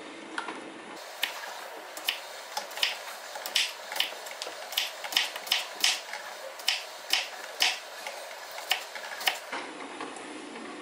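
Chef's knife slicing a cucumber on a bamboo cutting board: a string of sharp chops, about two or three a second, each one the blade knocking through onto the wood. A coffee machine hums in the background at the start and again near the end.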